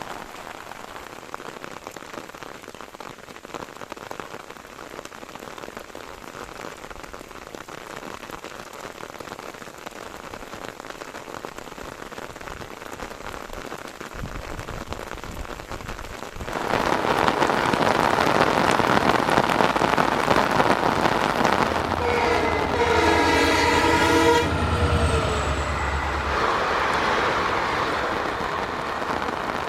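Heavy rain falling, then about halfway through a train comes through loudly and its locomotive sounds a long horn of about three seconds, with a deep engine drone under it; the train noise and rain carry on after the horn stops.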